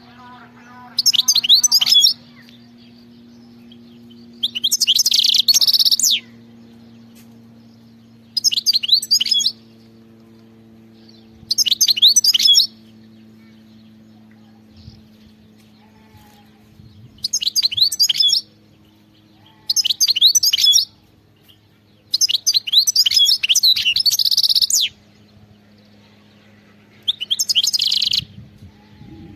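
European goldfinch singing: about eight short bursts of quick, high twittering song, each a second or two long, with pauses of a few seconds between them.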